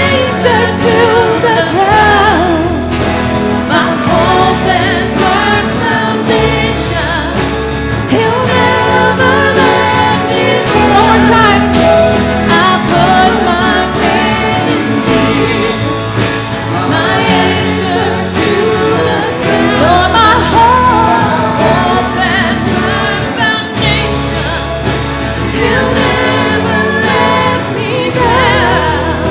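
Church worship band playing a contemporary worship song, with voices singing over sustained bass chords that change every few seconds.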